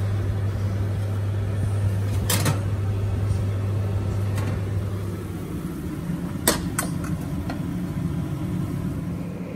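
A steady low electrical hum from a kitchen appliance cuts off a little over halfway through. Two sharp knocks sound, about two seconds in and again about six and a half seconds in.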